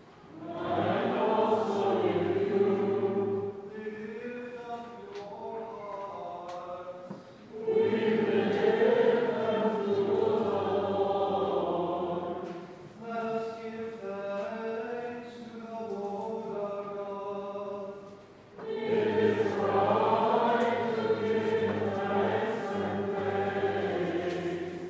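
Church congregation singing a hymn or chant in a reverberant nave. Three loud, full passages alternate with quieter, thinner stretches of singing.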